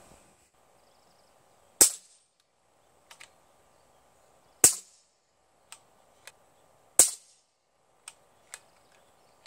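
Three shots from a .22 Kalibrgun Cricket 2 Tactical PCP air rifle fired without its LDC sound moderator, reading 82 to 84 decibels on a sound meter. Each shot is a sharp crack with a short tail, the shots coming about two and a half seconds apart, with fainter clicks between them.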